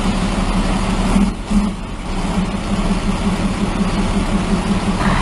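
Heavy machine's diesel engine running steadily, with a pulsing low hum and a brief dip about a second and a half in.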